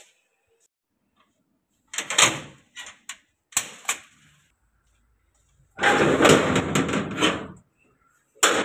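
A door being handled and opened: a few short knocks and rattles, then a longer rattling scrape of about two seconds, and a sharp knock near the end.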